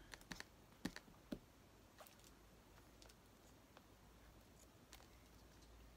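Near silence, with a few faint clicks and light taps, mostly in the first second and a half, as glue and paper are handled on a craft table.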